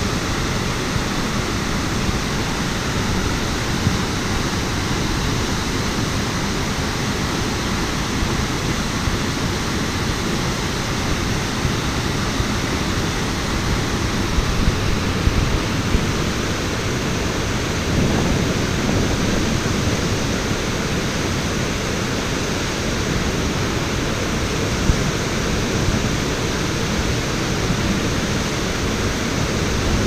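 Waterfall pouring over rock ledges into its plunge pool: a steady, loud rush of falling water.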